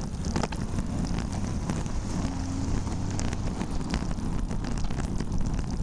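Steady wind rumble on a rider's camera microphone with scattered small clicks, as an oncoming car and a truck pass close by in the opposite lane.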